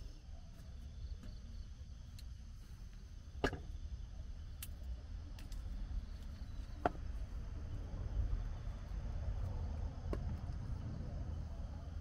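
Quiet tent ambience: a steady low rumble with two sharp knocks, the louder one about three and a half seconds in and a lighter one about seven seconds in.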